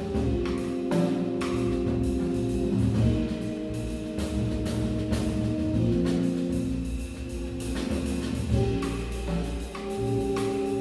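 Live jazz: a Hammond B3 organ holds sustained chords that change every couple of seconds, over drum-kit cymbal strokes and low drum hits.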